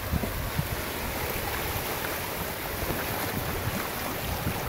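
Small waves breaking and washing in over the shallows of a sandy beach, a steady wash, with wind buffeting the microphone in low gusty rumbles.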